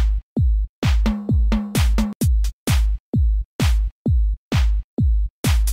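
Electronic background music with a steady drum-machine kick beat, about three beats a second.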